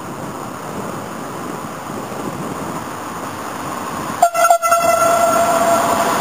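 Electric passenger train approaching through a station, its running noise slowly growing louder. About four seconds in, the locomotive sounds its horn: a single steady tone, held and cutting out briefly once or twice.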